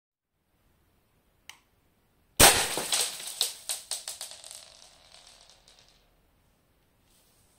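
A faint click, then a loud sharp crack as a 0.43 g BB from a Snow Wolf M24 airsoft sniper rifle at about 700 fps strikes a bedside lamp, followed by a few seconds of small hard pieces bouncing and clattering on the wooden floor, the bounces coming quicker and fainter until they die away.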